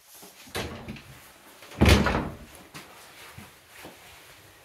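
A house's front entrance door shutting with a loud bang just under two seconds in, after a softer clatter of it being handled; a few light knocks follow.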